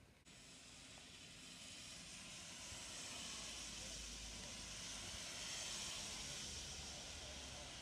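Hiss of a wet street in the rain, building up over the first few seconds, with a low rumble underneath.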